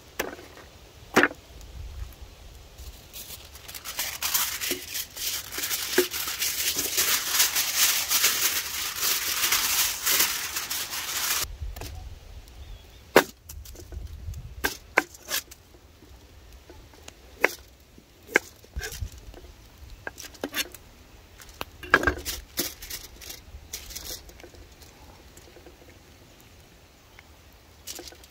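A sheet of aluminium foil crinkling as it is unrolled and spread out, then a knife slicing a carrot on a wooden cutting board, giving a run of irregular sharp knocks.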